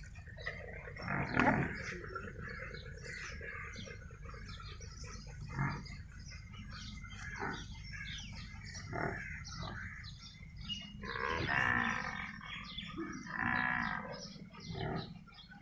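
Outdoor animal sounds: small birds chirping throughout, and two longer animal calls, each about a second long, around eleven and thirteen seconds in.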